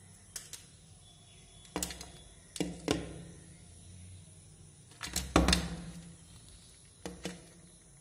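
A bird's beak pecking at a window pane: sharp knocks on the glass, mostly in quick pairs, about five bouts, with the hardest strikes a little past halfway.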